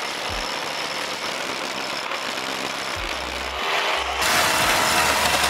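A power drill runs steadily, driving a long masonry bit into a brick wall. A larger bit is enlarging the pilot hole for the EV cable. The drilling gets louder for about the last second.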